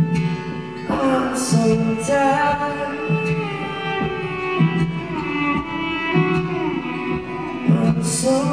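Live acoustic band music: acoustic guitar playing under a wordless melody that glides and is held, over a repeating low bass note.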